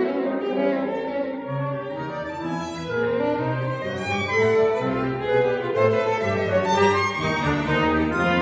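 Solo violin playing a concerto line over an accompaniment of wind instruments and double basses, with many changing notes above sustained low tones; the ensemble grows louder about halfway through.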